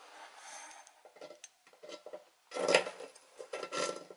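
Hand screwdriver turning a small #4 wood-and-metal screw through a metal cabinet bracket. It starts with a grinding rasp for about a second, then scattered clicks, then louder metal scraping and clinking in the last second and a half.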